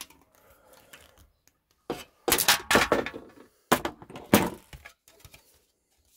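Metal parts and tools knocking and clattering on a tabletop, in two loud clusters of quick knocks about two and four seconds in.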